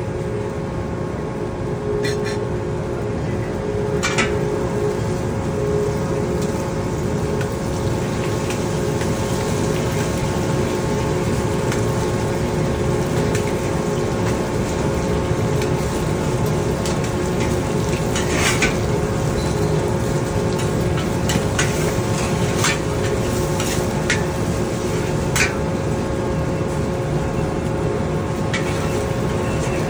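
Eggs sizzling in a hot wok while a steel wok spatula scrapes and stirs them, striking the wok with sharp clinks now and then. A steady roar and a low hum run underneath.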